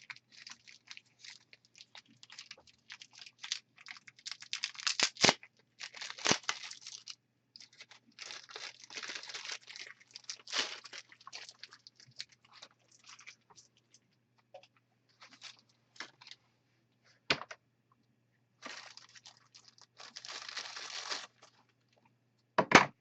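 Packaging being unwrapped and handled, crinkling in irregular bursts of up to a second or so, with a few sharp clicks.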